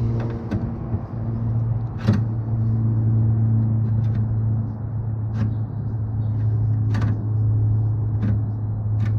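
Steady low hum, with a handful of short, sharp metallic clicks spread through it: a Knipex pliers wrench clamping and working the bent sheet-steel edge of a 1955 Snap-on KR61 tool chest.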